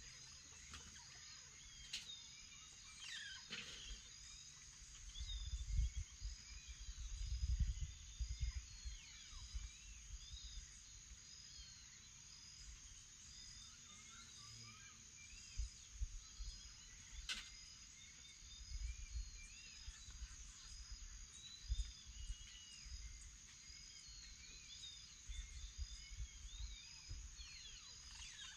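Dawn chorus of insects and birds: a steady high-pitched insect drone, a short chirp repeated about once a second, and scattered bird calls and songs. Low rumbles come and go beneath it, loudest about six to eight seconds in.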